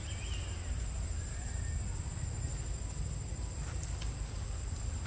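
Forest ambience: a steady low rumble and a thin, constant high-pitched whine, with two faint short chirps in the first two seconds.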